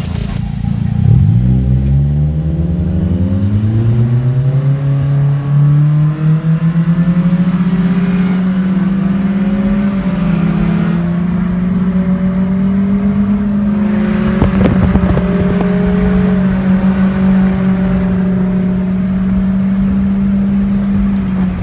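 A car engine pulling away, its note rising steeply over the first few seconds, then holding steady at cruising speed until it falls off at the very end.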